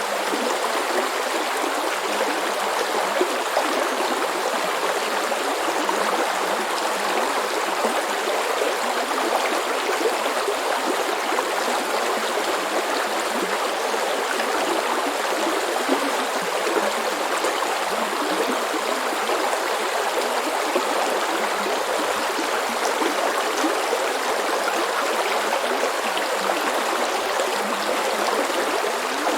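Shallow brook flowing and babbling over stones, a steady even rush of water with fine gurgling detail.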